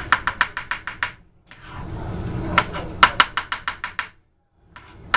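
Chef's knife rapidly chopping mushrooms on a plastic cutting board: runs of sharp knocks on the board, about seven a second, with a pause after about a second and another near the end.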